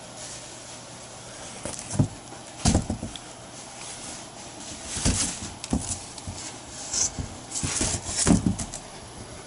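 Hands handling a cardboard shipping box: a series of short scrapes, rustles and knocks, the loudest about two seconds in and near the end.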